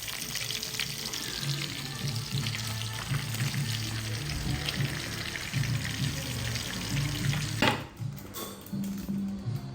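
Breaded shrimp deep-frying in hot oil: a steady sizzle full of fine crackles, which cuts off about eight seconds in.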